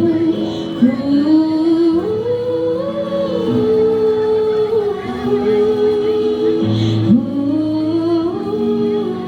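School choir of teenage voices singing in Indonesian, holding long notes of a slow melody, with several voice parts heard together.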